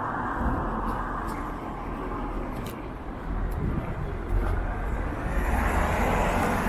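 Street traffic: one vehicle's tyre noise fades away over the first few seconds, then another vehicle's low engine rumble builds as it approaches.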